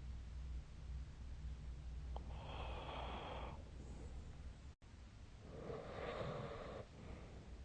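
A sleeping person snoring: two slow, noisy breaths about three seconds apart, over a low rumble in the first half.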